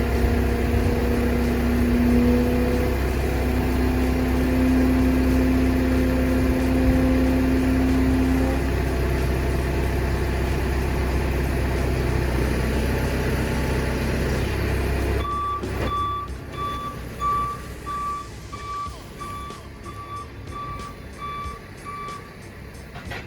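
A heavy truck's engine running with a steady drone. It cuts off abruptly about fifteen seconds in and gives way to a vehicle's reversing alarm beeping steadily, about once a second.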